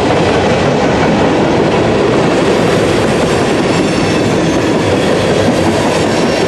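A freight train of empty ethanol tank cars rolling steadily past: a loud, continuous rumble and rattle of steel wheels on the rails.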